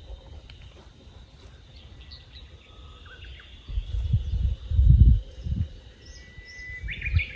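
Birds chirping and calling, short chirps with one held whistle near the end. A low rumble lasting about two seconds comes in about halfway through and is the loudest sound.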